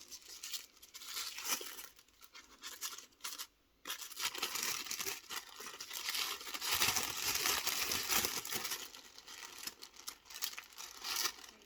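Packaging being crinkled and torn open by hand while a small monitor is unwrapped, an irregular scratchy rustling with a brief pause a little past three seconds.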